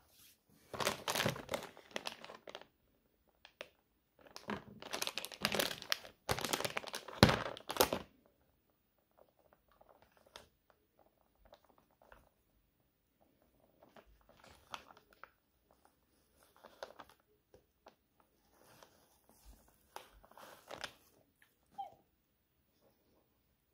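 Crinkling and rustling of something being handled, most likely paper or plastic wrapping. It comes in two loud stretches in the first eight seconds, then softer scattered rustles and clicks.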